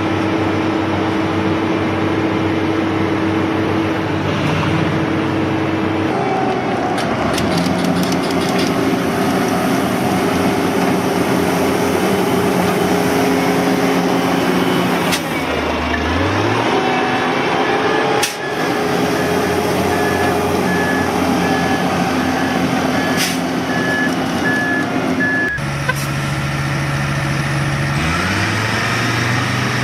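Engines of heavy road-construction machinery running steadily, the engine note changing abruptly several times. A backup alarm beeps repeatedly for about ten seconds from the middle of the stretch.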